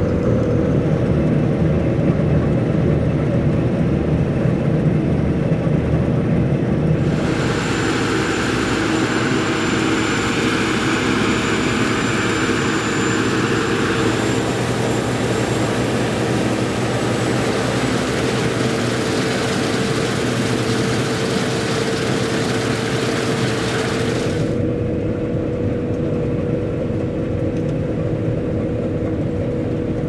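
Claas Lexion 560 Terra-Trac combine harvester running steadily while threshing barley, a constant engine drone with a high whine, heard muffled from inside the cab. About seven seconds in it turns brighter and hissier, as heard outside the machine, and it returns to the muffled cab sound near the end.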